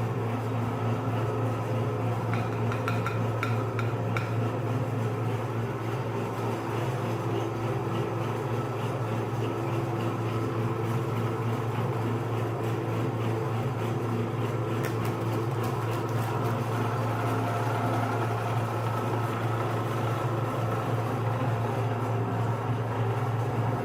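Electric meat grinder running with a steady low motor hum, with a few light clicks about three seconds in and again around fifteen seconds in.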